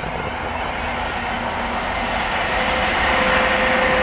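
WAG-9 electric freight locomotive hauling tank wagons approaching and growing louder, with wheel and rail noise. A steady tone comes in about halfway through.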